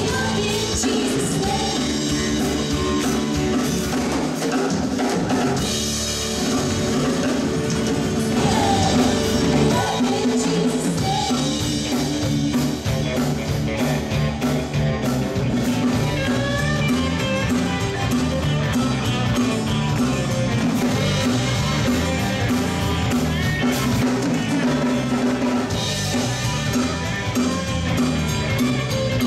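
Live southern gospel band music, with a drum kit keeping a steady beat under the band.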